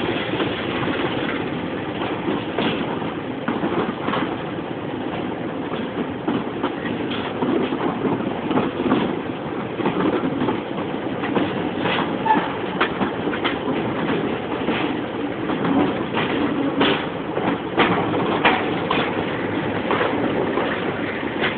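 Train hauled by a BR Class 25 diesel, heard from a coach, coasting into a station: a steady running rumble with irregular sharp clicks of the wheels over rail joints.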